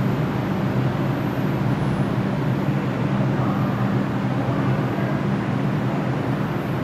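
Bombardier R142 subway train pulling into the station and coming to a stop, with a steady low hum from the train under a level rumble.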